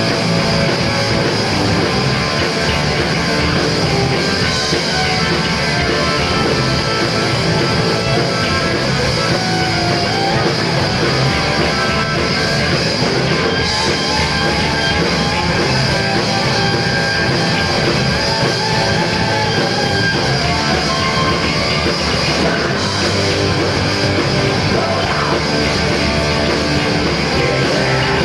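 Hard rock band playing live on stage: electric guitars, bass and drums, loud and continuous.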